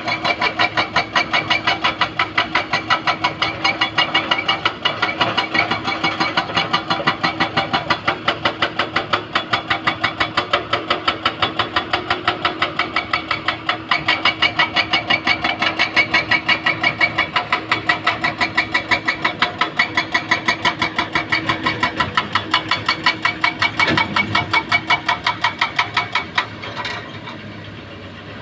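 Excavator diesel engine running under work, with a steady hum and an even rhythmic pulsing of about three to four beats a second that eases off near the end.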